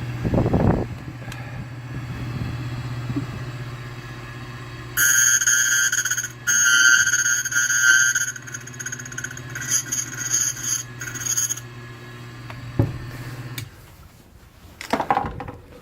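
Key-cutting machine running: a steady motor hum, with a loud, high scraping screech from about five seconds in to about twelve as the cutter mills the key blank, broken by brief pauses. The motor stops shortly before the end.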